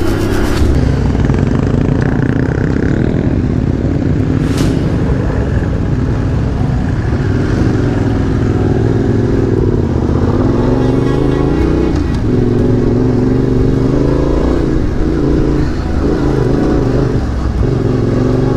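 Yamaha Ténéré 700's parallel-twin engine running under way, its pitch rising and falling again and again with the throttle, over a steady rush of wind and road noise. A single sharp tick sounds about four and a half seconds in.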